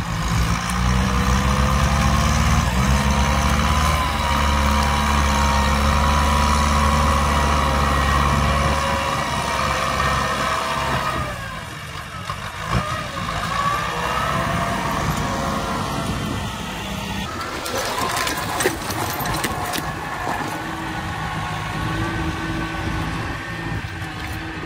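Farm tractor's diesel engine running steadily under load while working the ground. The sound drops and changes about eleven seconds in, then the engine carries on a little quieter and rougher.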